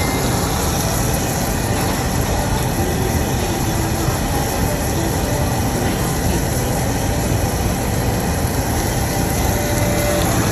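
Meat sizzling on a tabletop yakiniku grill plate: a steady hiss over a constant low hum.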